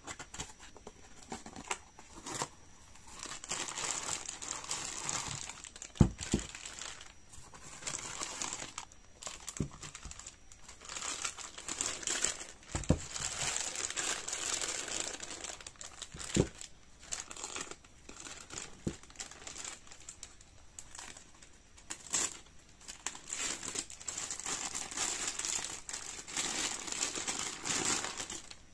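A clear plastic bag crinkling and rustling as the figure inside it is handled, with cardboard box packaging handled in the first few seconds. A few sharp knocks come now and then.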